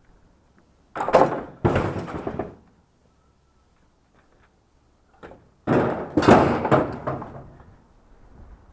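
Knocking and scraping of junk being pulled loose from a curbside pile to free a stool, in two bouts of a second or two each, the second starting about five seconds in.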